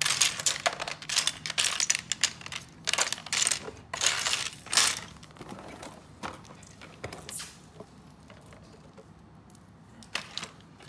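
Small plastic building bricks clicking and clattering against each other as they are picked through and sorted by hand. The clatter is busy for about the first five seconds, then thins to a few scattered clicks.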